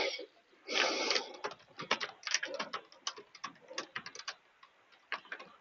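Computer keyboard typing: a run of irregular, quick key clicks. Two brief bursts of noise come in the first second or so.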